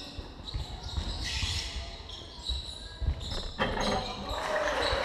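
Basketball game in a wooden-floored sports hall: the ball bouncing, shoes squeaking, and players calling out, with the hall echoing. A sharp knock about three and a half seconds in, as a shot hits the rim.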